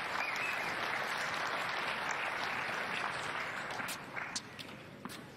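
Tennis crowd in an indoor arena applauding a won point, the clapping dying away over the last second or two.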